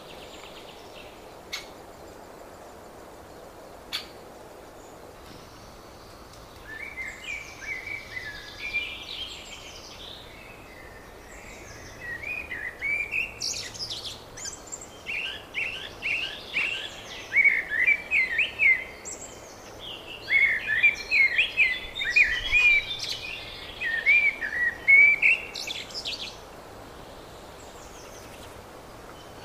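Songbird song: several bouts of quick, varied, chirping phrases, a few seconds each with short pauses between, starting several seconds in, over a steady background hiss. Two brief clicks come near the start.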